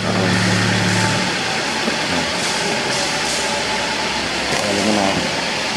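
Toyota Avanza engine idling, with the oil filler cap opened to check that oil is splashing up through the cylinder head after an overhaul. A steady mechanical running noise; a low hum in it stops about a second in.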